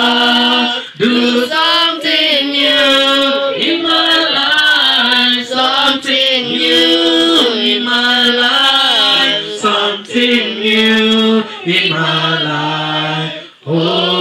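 Two men singing a worship chorus into handheld microphones, in long held notes that slide from pitch to pitch, with short breaths between phrases.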